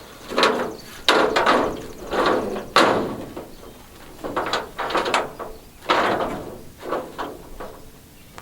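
A series of loud bangs and knocks, about nine in all with gaps between them, each ringing on briefly.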